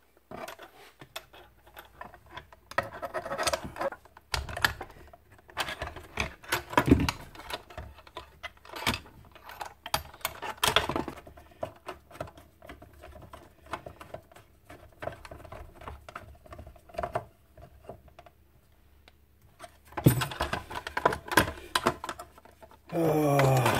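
Irregular clicks, knocks and rattles of a miter saw's clear plastic blade guard and its metal linkage arm being fitted back on by hand, with a quieter lull about three-quarters of the way through.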